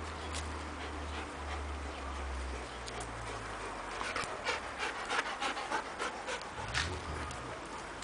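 Central Asian Shepherd dog panting, with a quick run of short sharp breaths from about halfway through, over a low steady rumble.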